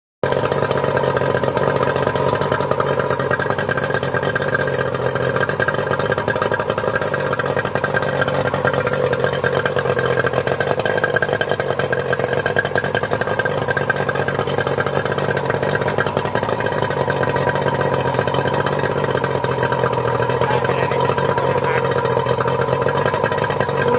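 Yamaha 60 hp 6H two-stroke outboard motor idling steadily on a test run after a new water-pump impeller has been fitted.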